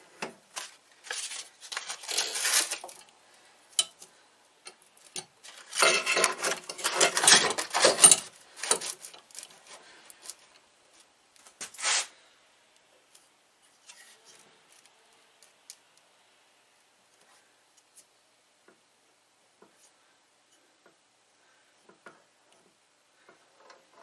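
Hand-handling noise at a bench drill press: bursts of scraping and rubbing with light metallic clinks as the chuck and the clamped barrel are adjusted by hand. The loudest stretch comes about six to nine seconds in. After about twelve seconds only faint, scattered clicks remain.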